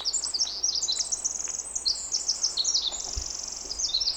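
A songbird singing one long, fast, high-pitched song of jumbled notes and rapid trills, with no pause.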